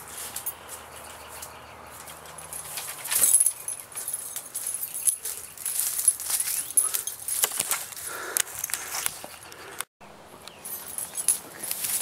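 Tree branches and leaves rustling and knocking as a person hangs from and swings on them, with irregular snaps and crackles.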